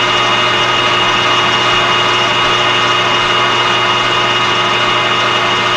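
Metal lathe running steadily while turning a plate held in its chuck: an even hum with a steady whine, with no change in speed.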